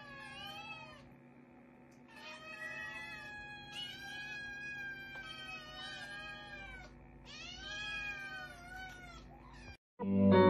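Kittens meowing: a run of high, wavering meows, some overlapping, in three bouts, the middle one the longest. Guitar music starts abruptly near the end.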